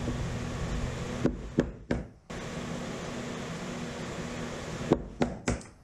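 A mallet tapping a chisel to trim the end of a scarf joint in wood: a few sharp knocks about a second in and again near the end, over a steady background hum.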